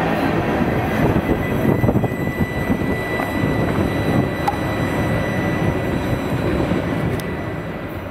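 A passing train's cars rumbling along the track, with a thin steady high tone running through the middle. The sound eases off near the end.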